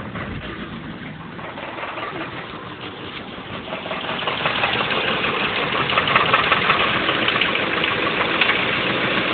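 1990 Honda Accord LX four-cylinder engine idling with one spark plug removed, with a rapid, steady knocking from the bottom end. It is a cylinder-drop test to tell rod knock from wrist-pin knock; the owner suspects rod knock despite new standard bearings. The sound gets louder about four seconds in.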